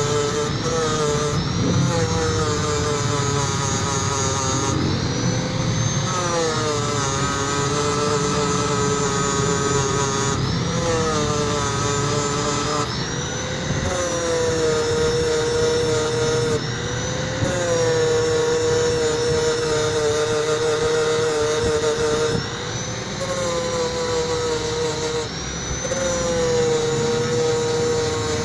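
Electric angle grinder grinding down a weld on stainless steel pipe. Its motor whine drops in pitch several times as the disc is pressed onto the metal and rises again as the pressure eases, over a steady hiss of abrasive on steel. This is the weld bead at a pipe elbow being ground smooth.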